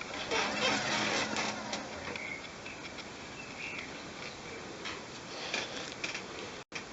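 Irregular scraping, rustling and light clicks of hands handling things, busiest in the first two seconds and quieter after, with the sound cutting out for an instant near the end.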